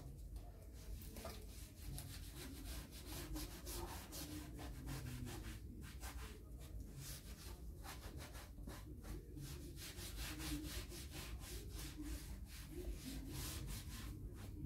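Sponge rubbing leather dye onto a leather knife sheath: a faint, repeated series of rubbing strokes.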